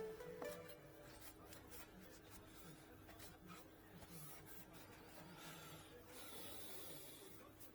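Near silence: faint rubbing and light clicks over a low steady hum.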